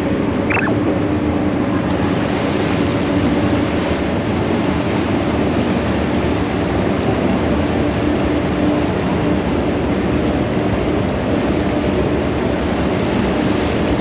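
A ferry's engines run with a steady drone under loud rushing and churning water from the propeller wash as the boat pulls away from the quay.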